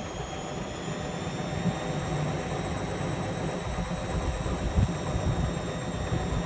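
Indesit MyTime EWE 71252 front-loading washing machine running: a steady mechanical rumble with a faint high motor whine, and a brief louder bump about five seconds in.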